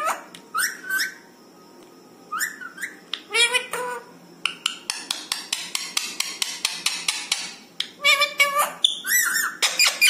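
Rose-ringed parakeet (Indian ringneck) giving short high-pitched calls and chattering, with a fast run of clicks for a few seconds in the middle.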